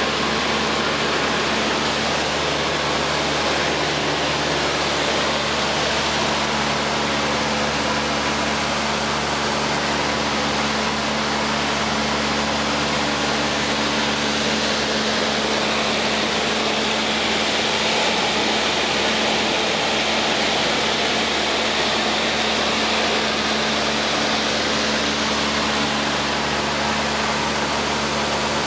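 Cessna 152's four-cylinder Lycoming engine and propeller running steadily in flight, heard from inside the cabin as a low drone under an even hiss.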